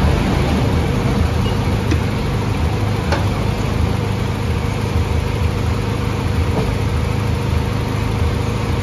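1996 Honda Civic engine idling steadily with the air conditioning compressor engaged, during an R134a refrigerant check. A couple of faint clicks are heard around the second and third seconds.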